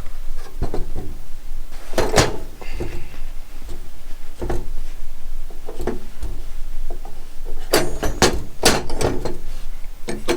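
Handling clatter of oscillating multi-tool accessories and their packaging: separate clicks and knocks of hard items being picked up and set down, with a quick cluster of them near the end.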